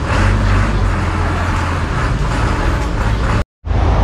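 Engine of a minibus running close by at the kerb, a steady low rumble with street traffic around it. It drops out for an instant near the end.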